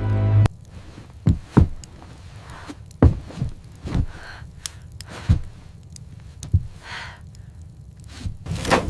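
Music cuts off about half a second in, then a run of irregular dull thuds and knocks, about eight of them, over a steady low rumble.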